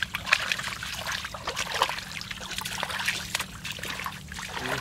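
Hands squelching and sloshing through wet mud and shallow muddy water, with irregular small splashes and trickles.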